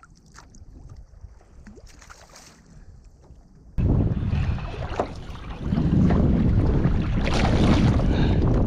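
Wind buffeting the microphone on a kayak at sea. It is faint at first with a few small clicks, then about four seconds in it turns suddenly into a loud, low rumble.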